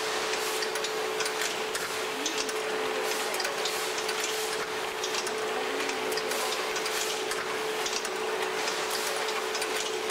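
Machinery of a spaghetti-folding production line running: a steady hum and hiss with many irregular short clicks and ticks.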